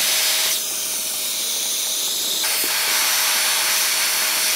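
Electric heat gun running, its fan blowing a steady hiss of hot air with a faint steady motor whine, aimed at a car badge to soften the adhesive.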